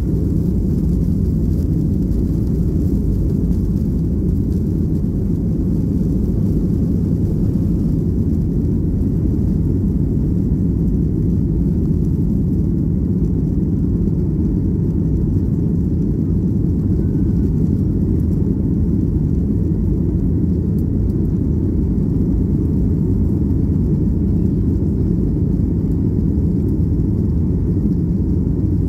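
Boeing 737-800's CFM56-7B turbofan engines at takeoff thrust, heard from inside the cabin as a steady low rumble during the takeoff roll and initial climb.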